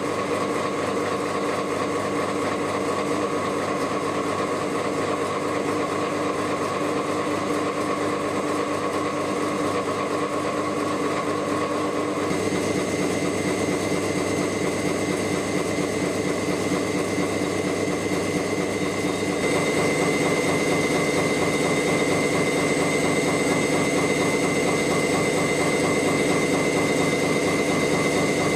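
Gear hobbing machine running steadily while cutting gear teeth, a dense mechanical hum with several steady whining tones. The tone shifts about twelve seconds in and again, a little louder, about twenty seconds in.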